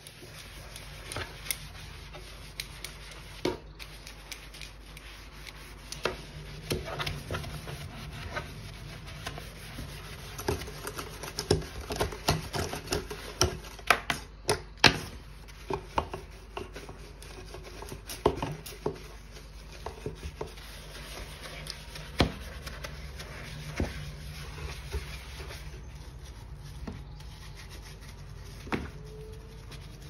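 A sponge scrubbing a black kitchen sink and its drain strainer through foamy cleaner: steady rubbing with frequent short, irregular knocks.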